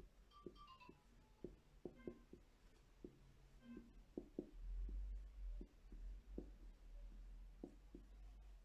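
Faint tapping and scraping of a marker pen writing on a whiteboard, letter by letter, with a few brief squeaks of the tip on the board.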